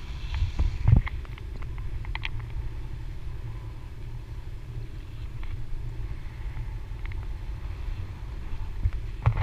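Wind buffeting the camera's microphone: a steady low rumble, with a few heavier thumps about a second in.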